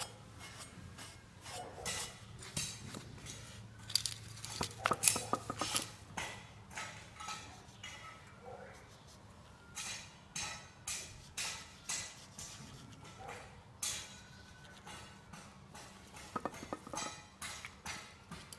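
Irregular light clicks and clinks of metal being handled while a propeller shaft is wiped and marked on the ground.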